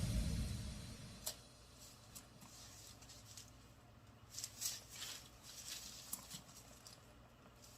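Background music fading out, then faint scattered rustles and small clicks, a cluster of them a little past the middle.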